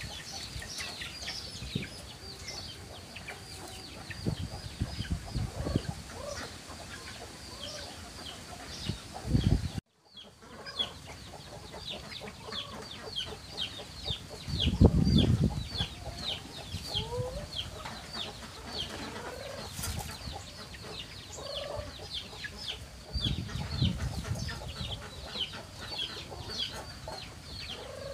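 A flock of chickens clucking, with short high chirps repeating several times a second. A few low rumbling bumps come through, the loudest about halfway, and the sound cuts out for a moment about a third of the way in.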